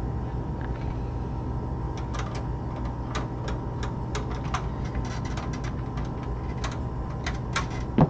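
Scattered light metallic clicks and taps as hands fit screws and expansion-slot brackets at the back of a steel PC tower case, over a steady hum.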